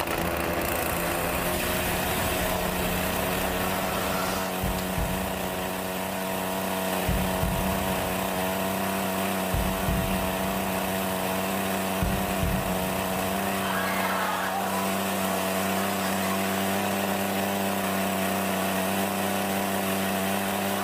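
Alpina two-stroke petrol chainsaw, just started, running steadily at a constant high engine speed with an even, unchanging pitch.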